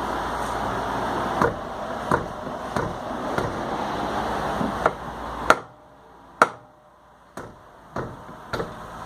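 Hammer blows on a car wheel rusted to its hub, struck from behind the rim to break it free: about ten sharp metallic strikes, roughly one every half second to second, the loudest about halfway through. A steady background hum cuts off suddenly at about the same point.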